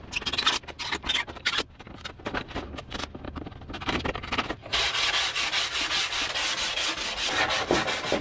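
Sheets of depron foam rubbing and scraping as they are handled and fitted. From about five seconds in comes a run of rapid, even strokes from a sanding block rasping back and forth along the foam edge.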